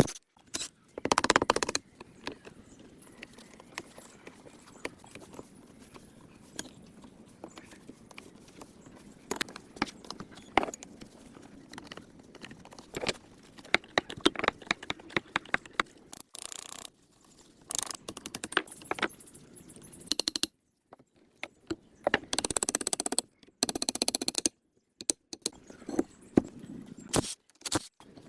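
Hand-tool work on metal parts: irregular clinks, taps and short scrapes, with a few sudden drops to silence.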